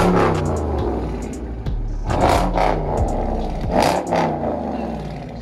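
Dodge Charger HEMI V8 with its mid mufflers deleted, revved three times. Each blip rises quickly and falls back to idle.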